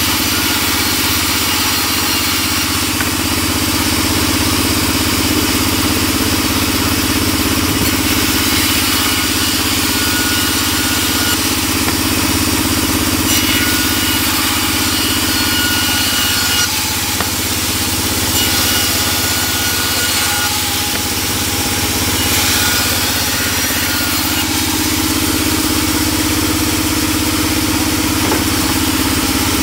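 Large vertical band saw running steadily with a low hum while its blade rips through wooden boards fed by hand, the cutting noise swelling now and then. A few short, thin, high whistling tones come and go near the middle.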